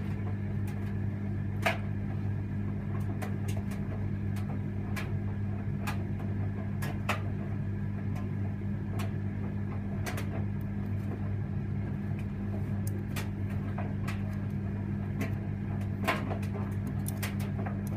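Electra vented tumble dryer running: a steady motor hum with irregular light clicks and knocks from the load tumbling in the drum.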